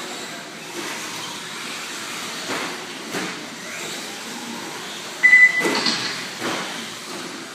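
Electric RC cars racing on an indoor dirt track: motor whine and tyres on dirt, rising and falling as cars pass. Just past five seconds in a short high beep sounds, with a loud knock right after.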